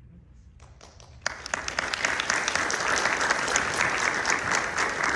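A small audience applauding: a few scattered claps, then steady clapping from about a second in.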